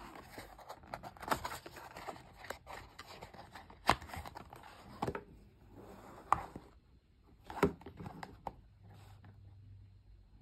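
Packaging handled by hand during an unboxing: irregular rustling, scraping and sharp clicks, with the loudest clicks around four, six and seven and a half seconds in, then quieter near the end.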